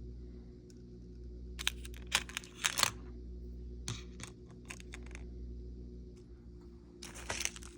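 Small steel screws and their plastic kit case being handled: three short clusters of clicks and rattles, about a second and a half in, around four seconds in, and near the end, over a steady low hum.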